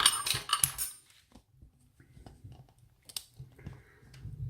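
Small metal lock parts and tools clinking and clattering by hand while a cylinder lock is being taken apart. There is a loud, ringing clatter in the first second, light scattered ticks after it, and a louder knock near the end.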